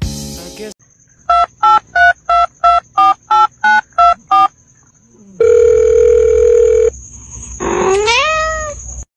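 A run of about ten short, evenly spaced electronic beeps like telephone dialing, then one long steady beep of about a second and a half. Near the end a cat meows once, rising then falling in pitch.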